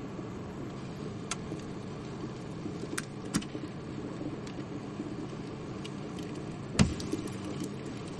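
Microwave oven running with a steady hum while an egg heats inside, giving a few sharp pops. One louder pop with a low thump comes near the end, followed by small crackles.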